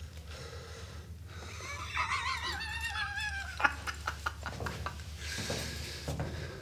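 A man laughing: a high, wavering cackle that sinks in pitch as it trails off, with a sharp click just after it.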